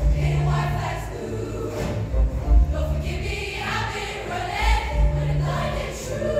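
High school show choir singing with its live backing band, the voices carried over sustained bass notes and drum hits.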